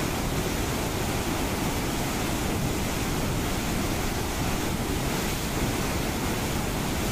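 Floodwater rushing through the openings of a concrete sluice gate: a steady, unbroken noise of churning white water pouring over and between the gate piers.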